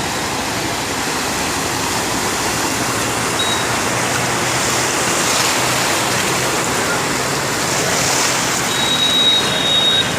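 Steady rushing of water, as from rain and water running on a waterlogged road, with a thin high tone briefly a few seconds in and again near the end.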